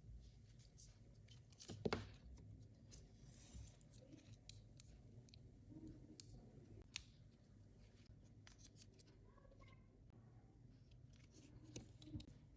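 Faint clicks and scraping of small tools working on a Sony Ericsson K800 phone's plastic parts during disassembly, with one sharper click about two seconds in.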